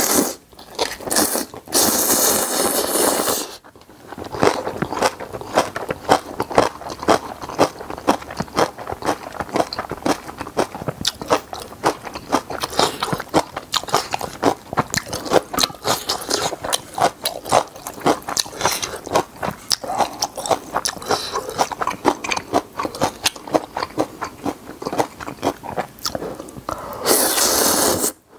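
Close-miked eating of spicy ramen noodles and napa cabbage kimchi: a quick, steady run of wet chewing and crunching clicks, with a long noodle slurp about two seconds in and another just before the end.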